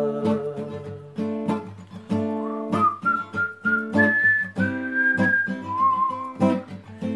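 Acoustic guitar strummed in a steady rhythm during an instrumental break; about two and a half seconds in, a person starts whistling the song's melody over it in long held notes.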